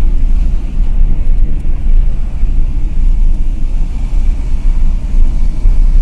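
A car driving along heard from inside, with a loud, unsteady low rumble of road and engine noise and wind buffeting the microphone.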